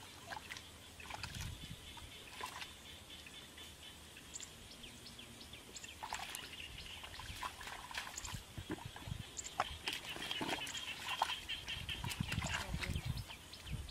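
Hands and bare feet squelching and splashing in shallow mud and water, with heavier sloshing steps near the end.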